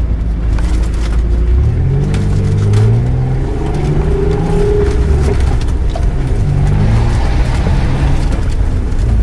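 Off-road 4x4's engine heard from inside the cab as it drives along a muddy, rutted track, revving up and easing off several times, with scattered clicks and knocks.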